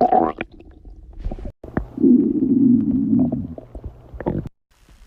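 Stomach growling: a few short gurgles and squeaks, with a louder low gurgling rumble lasting about a second and a half near the middle.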